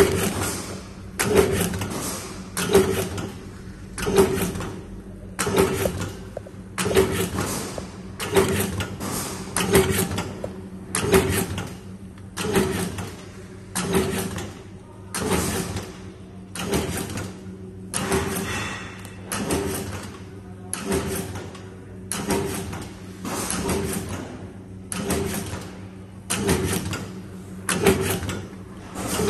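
Roll-to-sheet cross cutting machine running over a steady motor hum, with a short, sharp cutting stroke about every one and a half seconds as each length of printed sheet is fed and cut off.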